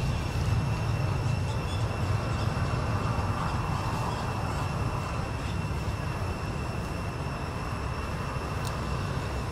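A steady low outdoor rumble, with a faint, steady high-pitched whine above it.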